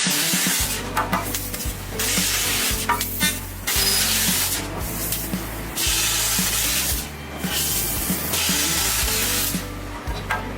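Welding hiss and crackle, coming in several stretches a second or two long, over a low steady hum from the machine.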